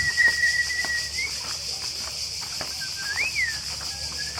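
A person imitating an owl call by blowing into cupped hands: a long steady hoot that lifts at its end, then a shorter hoot that rises and falls about three seconds in, and another beginning near the end.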